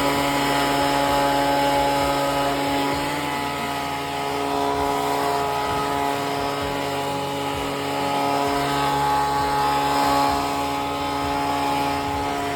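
Small gasoline engine of lawn equipment running steadily at a constant speed, its level rising and dipping only slightly.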